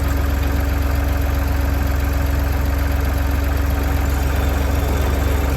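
An engine running steadily, with a deep, even rumble and a constant hum.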